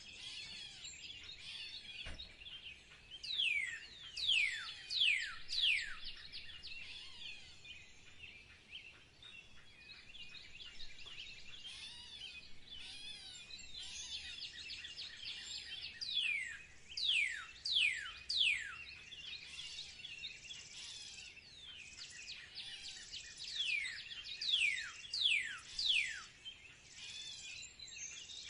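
Birds singing: a steady twitter of many small birds, broken three times by a run of four or five loud, steeply falling whistles.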